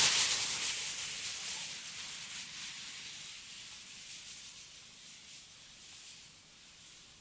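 Feet wrapped in plastic freezer bags sliding down a wet snow slope. The snow makes a steady hiss that is loudest at first and fades out over several seconds.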